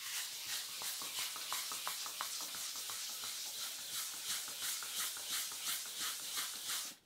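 Hand rubbing a gelcoat surface in rhythmic back-and-forth strokes, a steady hiss with short scuffs a few times a second. This is the final hand sanding and buffing stage of a gelcoat repair.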